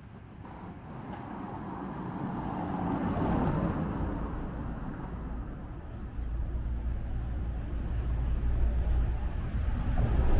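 City bus approaching along a narrow cobbled street, its engine and tyre rumble growing steadily louder as it draws near.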